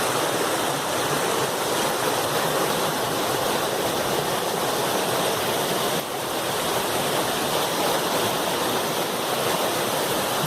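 Steady, strong rushing of a river's flowing water, with a brief dip about six seconds in.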